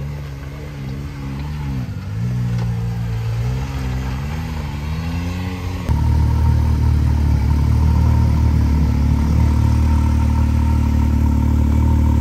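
Can-Am Maverick R side-by-side's engine running at low revs, its pitch rising and falling several times as the throttle is blipped. About six seconds in it gives way to another side-by-side's engine idling steadily and louder, heard close up.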